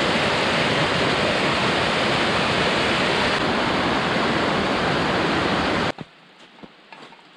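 Small mountain waterfall and stream cascading over rocks: a loud, steady rush of water that cuts off suddenly about six seconds in. Faint, irregular crunching steps on snow follow.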